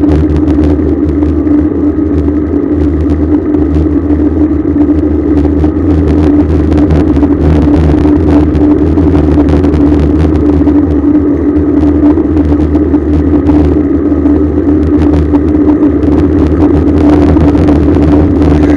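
Steady wind and road rumble picked up by a rear-facing camera mounted on a bicycle moving at speed. A constant low hum runs through it, with frequent small rattling clicks.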